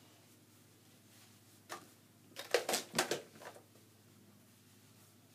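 Handling noises from gear and a plastic toy blaster: a single click, then a short cluster of knocks and rustles about two and a half seconds in.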